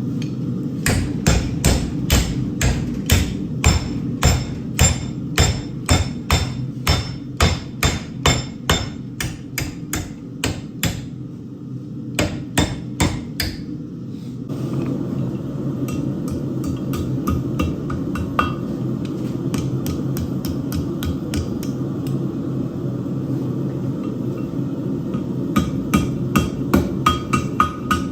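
Blacksmith's hammer forging hot steel on an anvil: a long run of steady blows, about two or three a second, then a pause filled by a steady hum, then a quicker run of ringing blows near the end.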